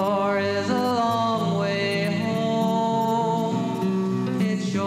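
Music led by acoustic guitar, with a voice singing a melody over it.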